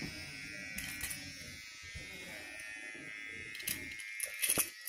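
Electric hair trimmer buzzing steadily as it clips a baby's hair, with a few short clicks near the end.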